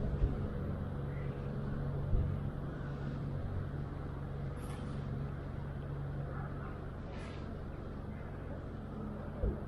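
Steady low hum of road traffic, a vehicle engine droning, with a few soft thumps.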